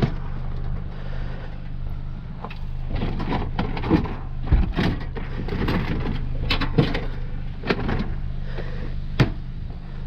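Sheet-metal washing machine cabinet being lifted and handled, giving a series of sharp knocks and clunks from about two seconds in until near the end, over a steady low hum.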